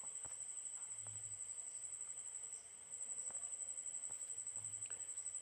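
Faint, steady high-pitched insect trill, pulsing rapidly and without a break, typical of a cricket, with a few soft clicks.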